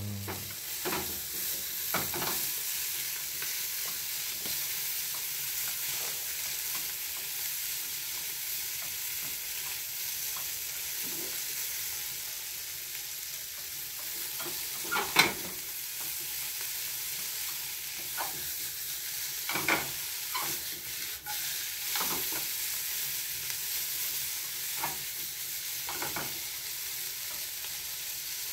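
Food sizzling in olive oil in a frying pan as it is stir-fried, with scattered knocks and scrapes of the utensil against the pan, the loudest about halfway through.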